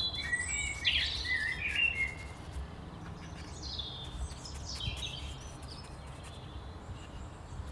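Birds chirping and singing in short high phrases, busiest in the first two seconds and again around the middle, over a low steady background rumble.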